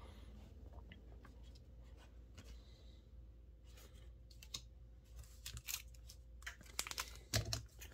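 Quiet handling noise: a few faint clicks, then from about five seconds in a foil Pokémon booster pack crinkling and clicking as it is picked up and handled, louder near the end.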